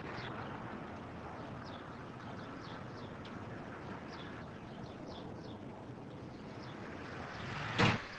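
Outdoor street ambience: a steady low hum of distant traffic with small birds chirping over it. Near the end, a short loud noise swells up and cuts off abruptly.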